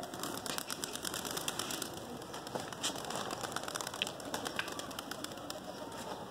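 A flock of fighter pigeons in flight, their wings flapping and clapping as a steady run of quick, irregular clicks.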